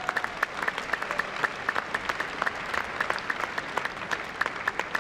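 Audience applauding, with many sharp individual claps standing out from the general clapping.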